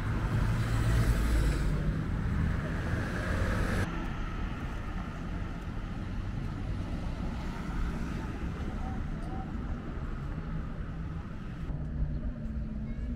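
Road traffic on a seafront street: cars passing, louder in the first few seconds and then a quieter, steady traffic hum.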